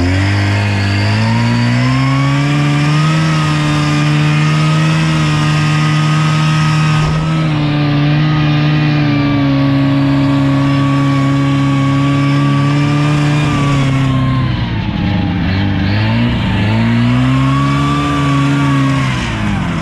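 Buran snowmobile engine pulling through deep snow. The revs climb over the first couple of seconds and hold steady. They drop and pick up again about three-quarters of the way through, then fall away at the very end.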